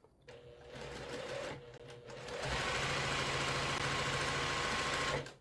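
Electric sewing machine stitching a seam: it runs quieter for about two seconds, then louder and steady, and stops suddenly near the end.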